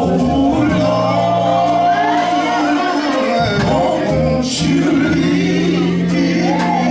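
Live gospel quartet music: male voices singing over a band with sustained bass notes and a steady beat, in a large hall.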